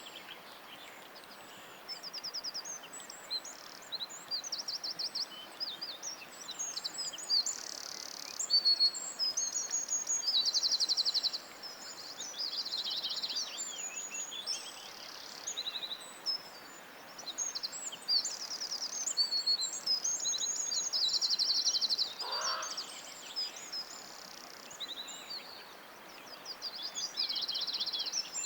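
Several songbirds singing at once, with rapid high trills and chirps overlapping and repeating throughout over a steady background hiss. A single short, lower call stands out about three-quarters of the way through.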